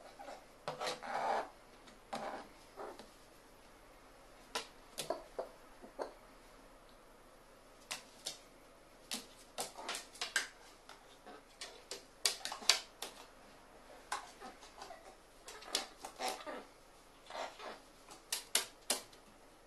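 Irregular sharp clicks and taps, single and in small clusters, from a pet carrion crow moving about on its perch: claws and bill on a metal tray and a wooden board.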